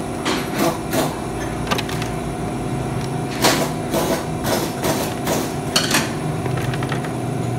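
Screwdriver working the screws of a plastic screw terminal block, giving about ten irregular clicks and scrapes as wire connections are tightened, over a steady low hum.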